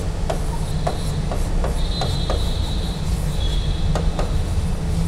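A pen writing on a board: irregular light taps as the strokes land, with a faint high squeak three times, over a steady low hum.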